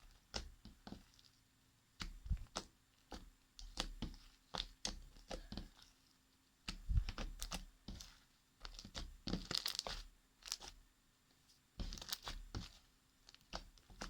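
Fluffy slime made with shaving foam being kneaded and stretched by hand, giving off irregular crackles and pops as air bubbles burst.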